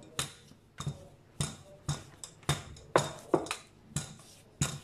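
Wooden rolling pin rolling out pizza dough on a granite countertop, knocking against the stone in short, sharp clicks about twice a second.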